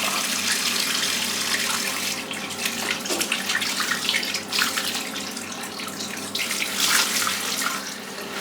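Water running from a tap into a sink, with irregular splashing from about two seconds in as face cleanser is rinsed off.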